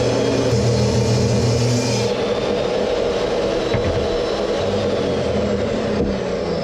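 DeWalt jobsite table saw running steadily, its blade cutting through a piece of thick white plastic for about the first two seconds, then spinning free.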